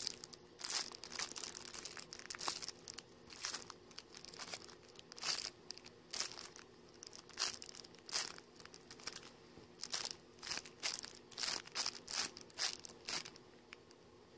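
Clear plastic packaging crinkling in irregular bursts as hands handle and unwrap a foam cake squishy. The crinkling stops near the end.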